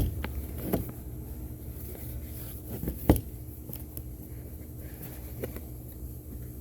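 Hands handling the camera's packaging and case: a few soft knocks and scrapes, with one sharper knock about three seconds in, over a steady low hum.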